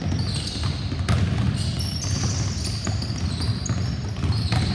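Basketballs being dribbled on a hardwood gym floor, a run of short bounces over a steady low rumble.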